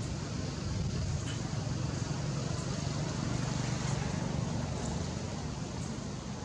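A steady low rumble under a background hiss, like distant motor traffic, swelling a little in the middle and easing near the end.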